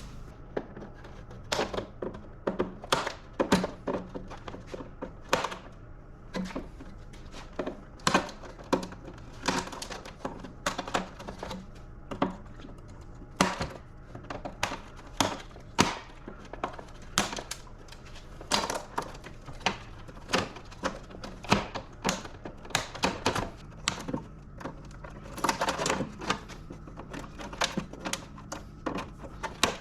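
Irregular clicks, clanks and knocks of hand tools and metal parts being handled while an equipment control panel is dismantled for scrap, with a denser run of clatter about 25 seconds in.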